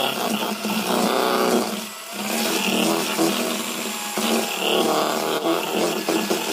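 Electric hand mixer running, its whisk beaters whipping eggs and sugar in a stainless steel bowl. The motor sound dips briefly about two seconds in, and there are a few clicks of the beaters against the bowl.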